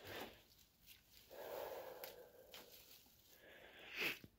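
Faint rustling of tomato and pepper plants as hands pick through the foliage and stems of a garden bed, with a short louder noise near the end.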